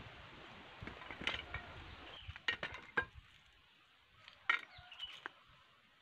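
Sharp clinks and knocks in three irregular bunches: a hand digging tool striking stones and hard earth while the roots of an Acalypha shrub are dug out from among rocks.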